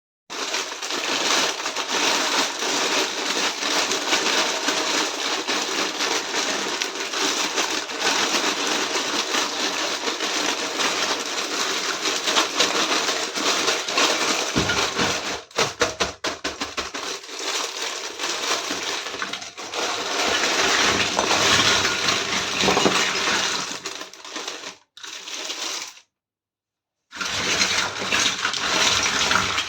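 Continuous rustling, crackling and small clinks from a miniature toy kitchen set being unboxed and handled, stopping briefly twice near the end.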